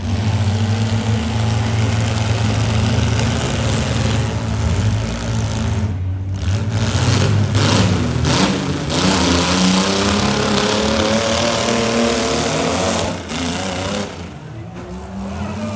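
Demolition derby car engines running and revving hard, the pitch climbing and falling as the cars accelerate.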